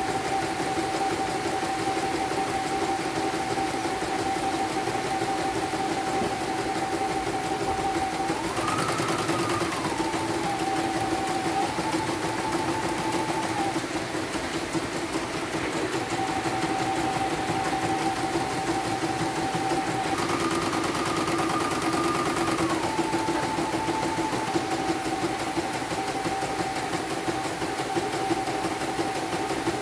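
CNY computerized embroidery machine running steadily, stitching out a design with a steady motor whine. The pitch of the whine rises for a couple of seconds about 9 s in and again about 20 s in, and the whine drops out briefly around the middle.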